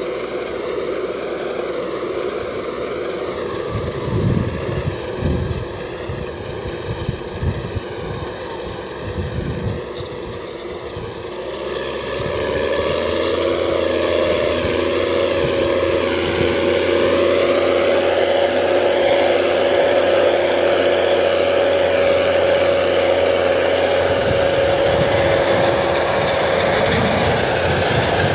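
Case IH Puma 225 tractor's six-cylinder diesel engine running steadily under load while pulling a planter across soil. It is quieter with a wavering pitch and a few low thumps in the first part, then grows louder about twelve seconds in with a steady whine.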